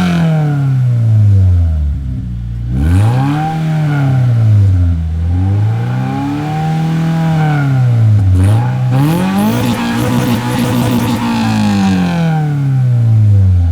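Subaru BRZ's flat-four boxer engine being revved through a Borla aftermarket exhaust: a falling rev, then three throttle blips that rise and fall in pitch, the last held longer before it drops back.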